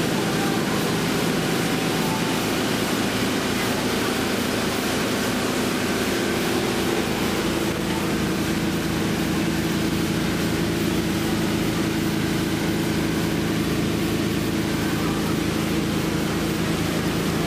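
Motorboat engine running steadily under way, heard from aboard as an even drone with a constant hiss of wind and water.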